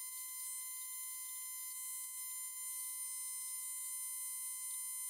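Small CNC milling machine (a converted Grizzly G0704) running while a 1/4 inch twist drill peck-drills aluminum, giving one steady high-pitched whine that does not change.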